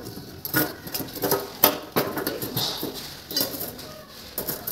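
Stainless steel surgical forceps clinking and clicking against one another as they are handled and laid out on a draped instrument tray, in a string of irregular sharp clicks.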